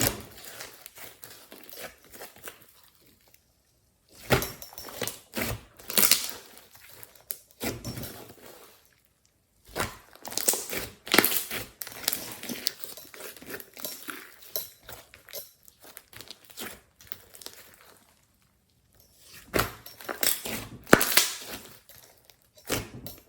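Glossy slime with clay and glitter mixed in, being squished and stretched by hand, in irregular bursts with short silent pauses between.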